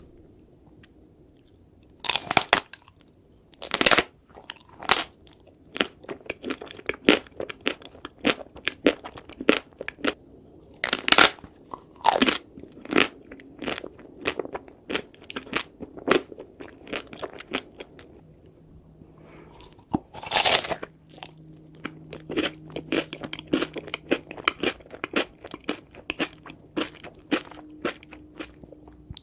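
Ice cream being eaten close to the microphone: a few louder bites and many quick, sharp crunches of chewing, with short pauses between runs.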